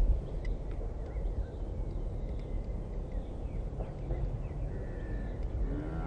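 Outdoor ambience: a steady low rumble of wind on the microphone with faint bird chirps, and near the end a drawn-out call that bends in pitch.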